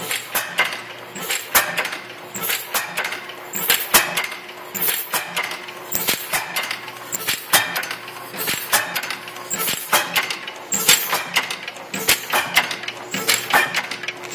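Quick, irregular metallic clicks and clanks, several a second, from the working parts of a 1914 IHC Famous stationary engine.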